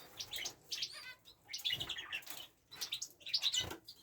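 Zebra finches chirping: many short, high calls in quick clusters, with one nasal pitched call about a second in.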